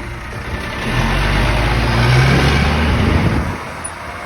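Heavy truck's diesel engine revving hard. It rises about a second in, holds for a couple of seconds, then drops back toward idle.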